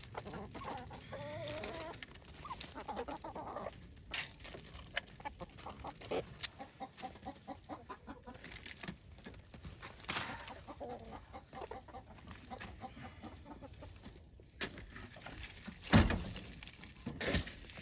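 Hens clucking and calling, most in the first few seconds, over many short ticks as they peck and scratch. Two loud low thumps come near the end.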